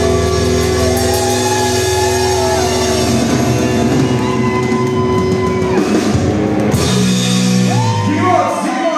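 Rock band playing live in a large hall: electric guitars, bass guitar and drum kit, loud and steady, with long held notes.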